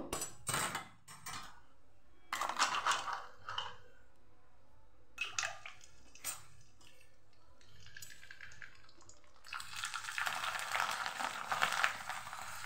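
Bhungla tubes frying in hot oil in a kadai: short clatters and knocks of metal tongs against the pan and bowl, then a steady sizzle that swells about three quarters of the way through as fresh tubes puff up in the oil.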